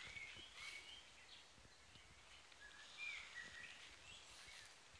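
Faint birdsong: short whistled phrases and chirps, heard over quiet outdoor background noise.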